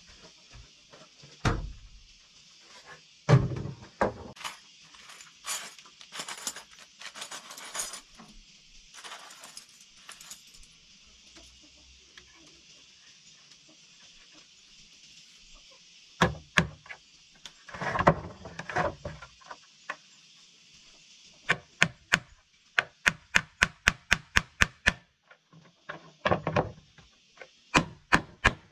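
Woodworking by hand: single knocks and rougher strokes on wood, then a quick run of about a dozen strikes, roughly four a second, over a steady high hiss.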